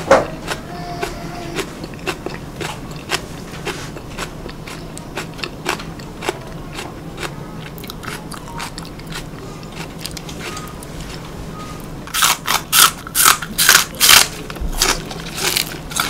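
Raw green onion being chewed: a steady run of small crisp crunches and clicks, then a cluster of much louder crackling crunches about twelve seconds in.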